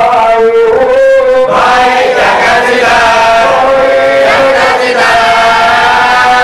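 Male marsiya reciter chanting an Urdu marsiya (elegy for the martyrs of Karbala) in long held, melismatic notes. Other voices of the gathering join him in chorus from about a second and a half in.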